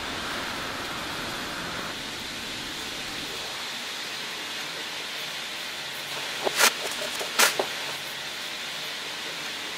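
Underground train running: a steady rushing noise, with two sharp clacks a little under a second apart just past the middle.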